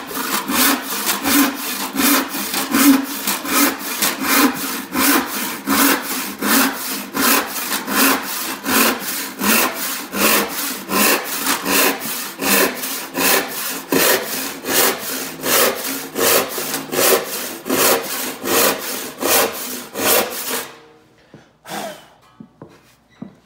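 Hand saw cutting through a scrap board in steady, even strokes, about two to three a second, stopping a few seconds before the end, followed by a couple of light knocks. This is a drift test cut with the saw just side-jointed once on the right to take off excess set, and the saw now tracks the line straight.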